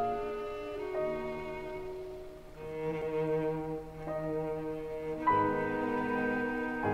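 Background music of bowed strings, cello and violin, playing slow held notes that change every second or two.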